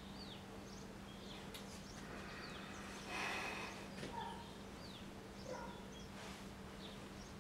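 Faint bird chirps: short, downward-sliding calls every second or two, over a steady low hum.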